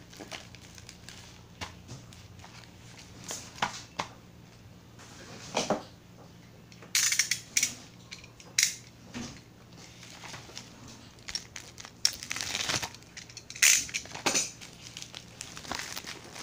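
Plastic mailer packaging being handled, crinkling and crackling in irregular bursts, louder and busier in the second half.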